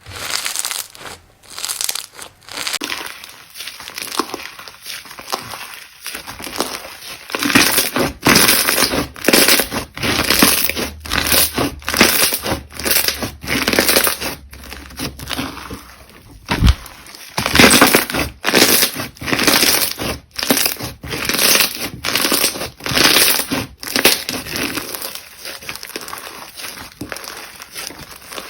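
Slime being squeezed, poked and pressed by hand, giving a dense run of irregular crackling, crinkling pops and crunches.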